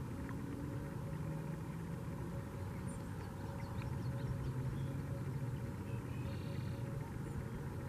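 Steady low outdoor rumble with a hum in it, swelling slightly about halfway through, and a few faint high chirps.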